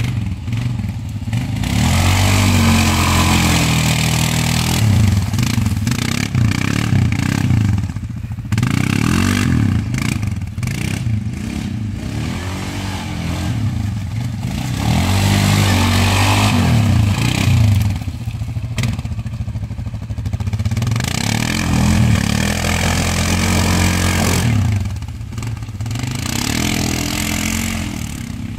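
ATV engine revving hard and easing off again and again as the quad churns through deep mud, the revs rising and falling every second or two, with a few brief lulls.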